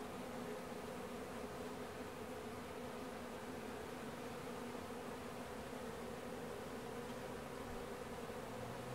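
Swarm of honey bees buzzing in a steady, even hum as they cluster over the front of a wooden hive box around its entrance.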